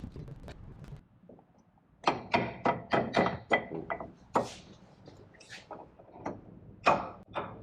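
A quick series of sharp metallic knocks and clanks from hand work on a disc brake caliper and pads, several a second, starting about two seconds in, some with a brief ring.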